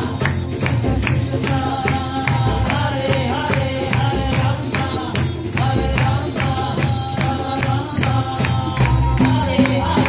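Live kirtan music: women's voices chanting a devotional melody over a steady hand-percussion beat of about three strokes a second, with cello and sitar accompaniment.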